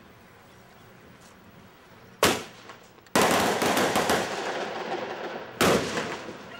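Loud explosive bangs: a single sharp bang about two seconds in, then a dense crackling volley lasting about two seconds that slowly fades, then another sharp bang near the end.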